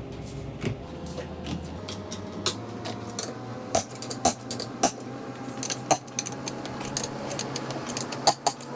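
Irregular sharp metallic clinks and taps, metal tools or hardware being handled and knocked together, over a steady low hum.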